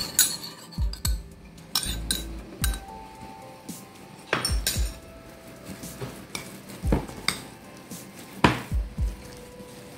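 Metal spoon knocking and scraping against a glass mixing bowl while stirring a thick fish and grated-coconut paste with a raw egg: irregular clinks, the loudest about eight and a half seconds in.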